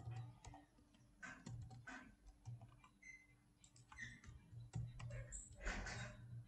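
Faint typing on a computer keyboard: irregular keystrokes and clicks over a low steady hum.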